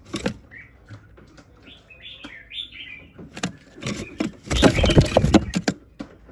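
Chinese hwamei giving a few short chirping calls, then about four and a half seconds in a loud flurry of wing flapping and scrabbling inside a wooden box, lasting about a second.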